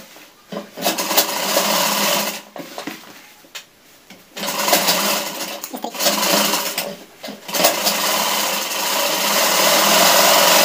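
Sewing machine stitching through trouser fabric in several short runs, starting and stopping a few times, with the longest run near the end.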